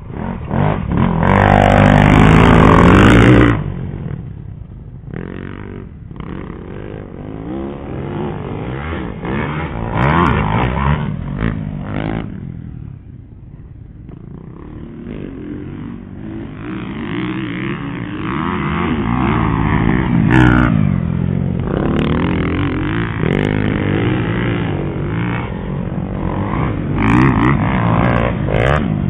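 Dirt bike engines revving up and down as racers ride past one after another. The loudest is a bike passing close in the first few seconds.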